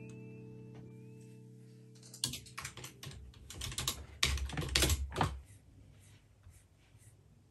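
A held musical chord fades away, then about two seconds in comes a quick run of typing on a computer keyboard, followed by a few faint clicks.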